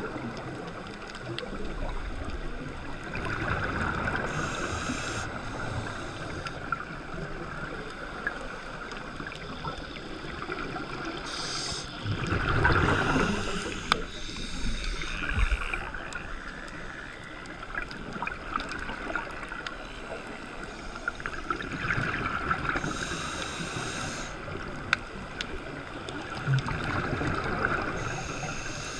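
Underwater sound of a scuba diver's exhaled bubbles gurgling up. It swells a few times, loudest about halfway through, over a steady water hiss.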